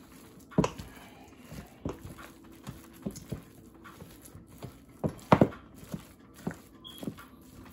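Wooden spoon mixing ground meat in a stainless steel bowl: irregular knocks and clacks of the spoon against the bowl, with a loud cluster of knocks about five seconds in.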